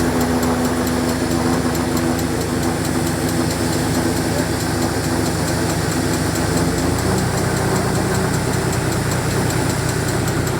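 Tractor engine running steadily while it drives a tractor-operated atta chakki (flour mill), a continuous machine hum. The note changes slightly right at the start and again about seven seconds in.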